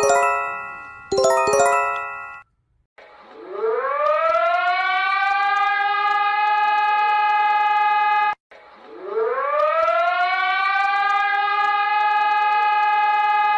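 An emergency alert: a short chime sounds twice, then an alert siren winds up in pitch and holds a steady tone. The siren cuts off suddenly, then winds up and holds again.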